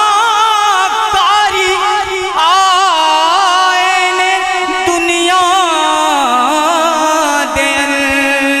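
A man singing an Urdu naat solo into a microphone, drawing out long, wavering melismatic notes with no clear words; about six seconds in the held note drops to a lower pitch.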